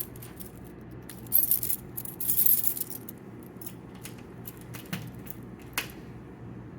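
Two brief metallic jangles, about a second and a half in and again just after two seconds, with scattered small clicks through the rest, over a steady low hum.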